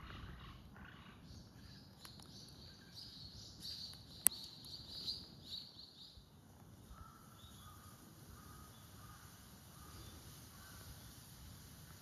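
Faint bird calls: a run of high chirps in the first half, then short lower notes repeated at intervals, with a single sharp click about four seconds in.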